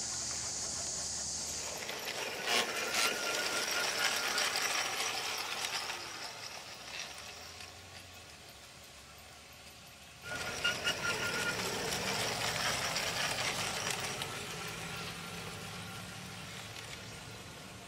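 G-scale cog-railway model train running on its rack-and-pinion track, a fast mechanical rattle and clatter. It grows louder as the train comes close and fades away, then starts up again after a sudden break about ten seconds in and slowly fades.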